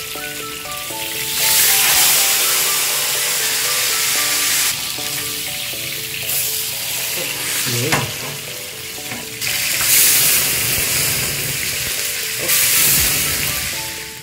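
Butterflied milkfish frying in hot oil in a pan: a steady sizzle that swells louder twice.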